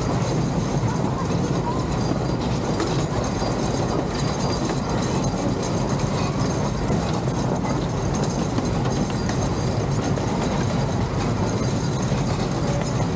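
Miniature ride-on train running along its track, a steady low rumble of wheels on rail.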